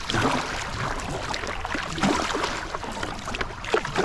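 Kayak paddle strokes splashing in the sea and water slapping against the hull as the kayak is paddled against the tide, with a low rumble underneath.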